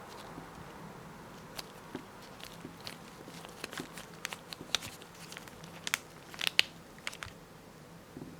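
Irregular small clicks and crackles, as of parts being handled and fitted by hand during a washing-machine repair, thickest and loudest about six to seven seconds in.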